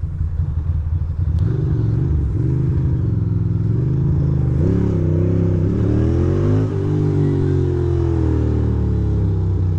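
2006 Ducati Monster 620's air-cooled L-twin engine pulling away and accelerating. The revs climb about five seconds in and again near seven seconds, drop sharply, then ease off slowly, under wind and road noise.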